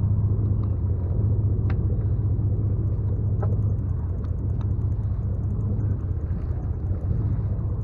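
Sportfishing boat's engine running with a steady low hum, with a few faint clicks.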